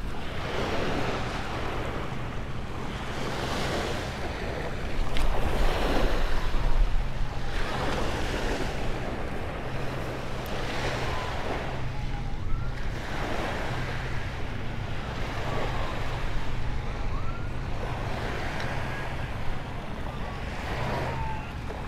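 Small bay waves breaking and washing up on a sandy beach, swelling and ebbing every couple of seconds, with wind rumbling on the microphone, strongest about five to seven seconds in.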